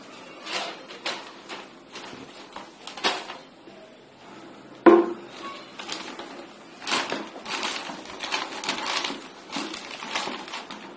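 Newspaper crinkling and rustling in irregular bursts as a folded newspaper liner is handled and pressed down into a plastic dustbin. One sharp knock, the loudest sound, comes about five seconds in.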